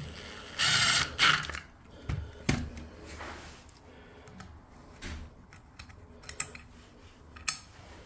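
A screwdriver ratcheting in a quick run of clicks as a screw is driven into the steel faceplate of a multi-point door lock. A few sharp metal clicks and knocks follow as the lock case is handled.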